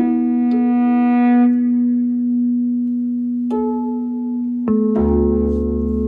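Bass koto and electric guitar in slow improvised music: a steady held drone with a few plucked koto notes ringing out over it. A deep low tone joins about five seconds in.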